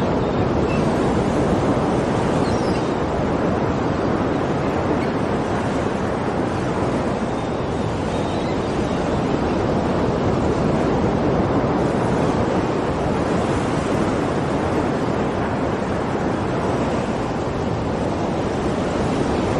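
Sea surf: a steady, dense rush of waves with no single wave standing out.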